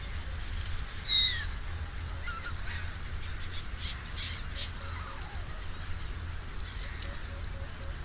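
A large flock of waterbirds calling, with many overlapping calls and one loud, sharp call about a second in that drops in pitch. A steady low rumble runs underneath.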